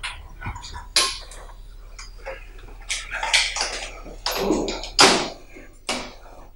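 Hard knocks and clattering of a box and small objects being handled on a tabletop, with a rustling, clattering stretch about four seconds in and the loudest knock about five seconds in.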